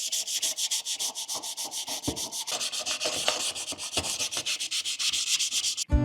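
Hand sanding: sandpaper rubbed in quick, even back-and-forth strokes, about eight a second. Music cuts in right at the end.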